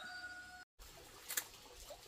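The held end of a rooster's crow, cut off suddenly less than a second in. It is followed by faint scattered clicks and one sharp tick.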